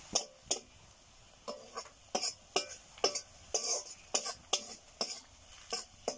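Wooden spatula scraping and knocking against a black iron kadai while stirring frying onions and green chillies, in short uneven strokes about two a second.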